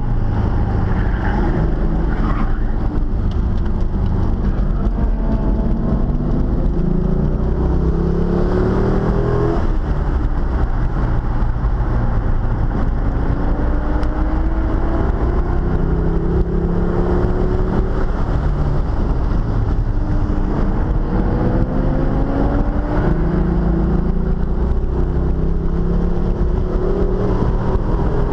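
Corvette V8 fitted with a new camshaft, heard from inside the cabin under hard track driving. The engine note climbs several times under acceleration and falls back between pulls, over a steady rush of road and wind noise.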